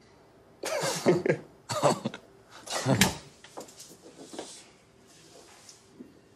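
A man laughing quietly in short breathy bursts, giggling to himself, the bursts fading after about three seconds.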